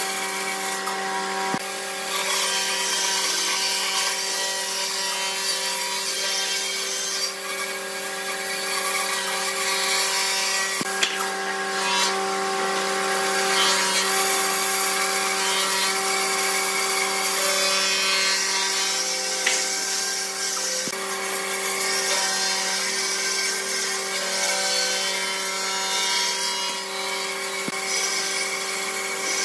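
Bandsaw running with a steady hum while its blade cuts a curve through a thick wooden slab, the hiss of the cut swelling and fading as the wood is fed and turned.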